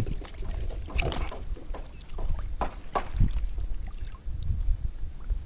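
Wind rumbling on the microphone over lapping water, with a few short splashes.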